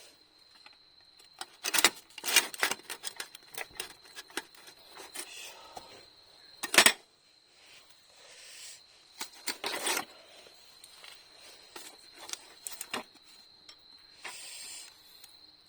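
Irregular sharp clicks and knocks, some in quick clusters, the loudest about seven seconds in, over a steady thin high-pitched trill.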